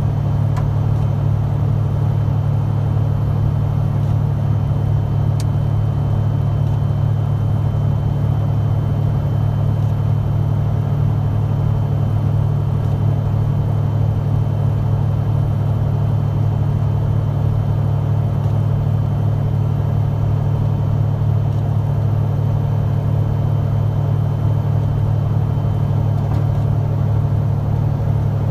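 Cirrus SR22TN's turbocharged six-cylinder piston engine and propeller running at low power during the landing rollout, a steady low drone heard from inside the cockpit.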